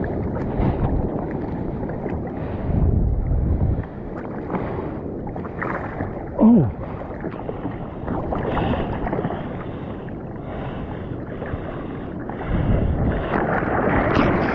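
Seawater sloshing and lapping against a bodyboard close to the microphone as the rider paddles by hand, with wind buffeting the microphone. About halfway through comes one brief, loud falling tone; near the end the splashing grows louder as water washes over the board.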